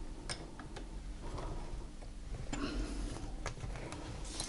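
Scattered faint clicks and light scrapes of a screw being undone and metal parts handled on a Chaika sewing machine, over a low steady hum.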